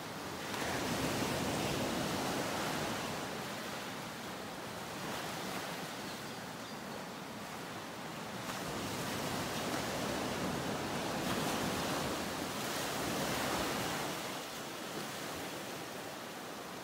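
Ocean surf: a steady rushing of waves that swells and eases every few seconds.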